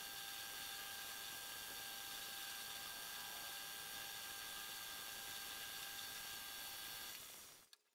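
Homemade metal lathe running, spinning a threaded steel rod against its cutting tool: a steady whine over hiss that fades out near the end.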